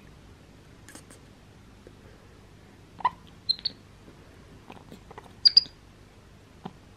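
Capuchin monkeys giving a handful of short, high-pitched squeaks, mostly in the second half, the loudest about five and a half seconds in.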